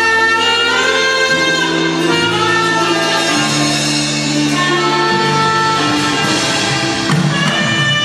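Instrumental music led by brass and saxophone, holding long melody notes over a bass line that moves to a new note every second or two.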